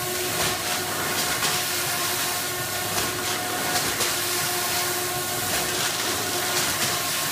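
Sigma Basic Compact bread-bagging machine running, pushing sliced loaves into bags: a steady hiss with repeated clicks and clatter from the mechanism, over a faint hum.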